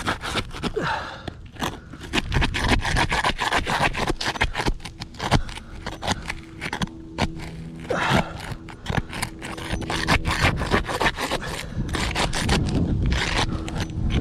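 Metal shingle scraper being worked hard under sealed asphalt roof shingles: rapid, repeated scraping and knocking strokes. The shingles' sealant is holding fast and will not release.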